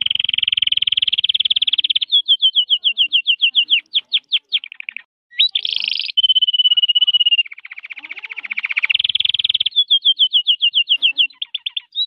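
Red-factor canary singing: a long, high song of fast trills and runs of rapidly repeated rising and falling notes, with a short pause about five seconds in and a held whistle-like note just after.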